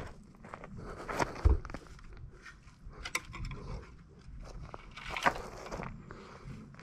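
Footsteps and shuffling on gravel, with scattered knocks and clicks as a nail-studded wooden board is picked up and handled. A dull thump about one and a half seconds in is the loudest sound.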